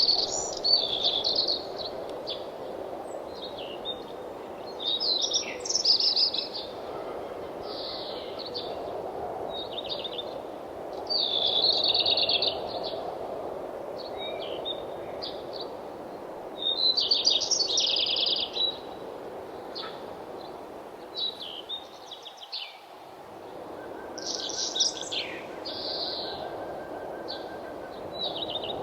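Songbirds singing in short, high chirping phrases about every two to three seconds, over a steady low background rush that briefly drops away a little past the middle.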